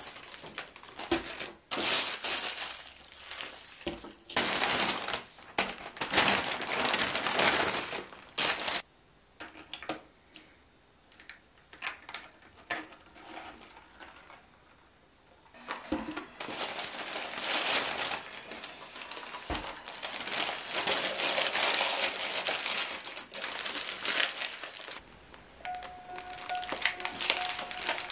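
Paper fast-food bags crinkling and rustling as they are handled and unpacked, with a few light knocks of items set down on the table. The crinkling comes in two long stretches with a quieter pause between.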